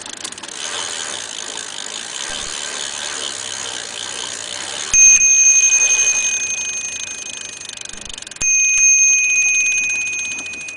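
Bicycle freewheel ticking fast, then the bicycle bell rung twice, about halfway and again later, each ring a steady high trill that fades.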